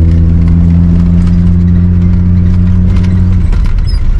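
Old Ford Ranchero pickup's engine running at a steady pitch, with light rattling over gravel; the steady note drops away near the end.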